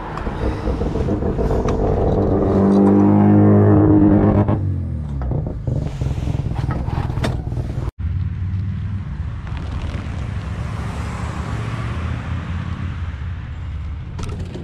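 Motor vehicle engine running close by, growing louder over the first few seconds and cutting off about four and a half seconds in. Then a steady low hum, with a vehicle passing on the road.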